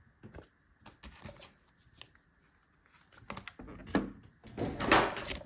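Trading cards and box packaging being handled: scattered light taps, clicks and rustles, building to a louder, longer rustle and scrape about four to five seconds in.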